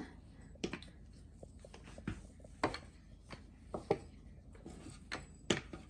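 Rolling pin working a ball of dough on a floured stone countertop: irregular light knocks and taps, about a dozen, with soft rubbing between them.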